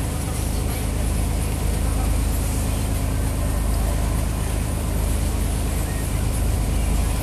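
Motorboat engine running steadily at speed, with the rushing wash of its wake churning behind the stern.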